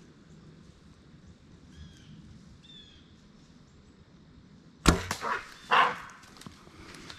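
Compound bow being shot: a sudden sharp crack of the string releasing about five seconds in, followed within a second by two more loud, shorter noises.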